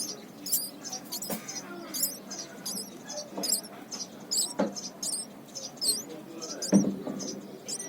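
A baby common tailorbird chirping over and over, about two short, high-pitched squeaks a second. A few soft knocks come through, the loudest near the end.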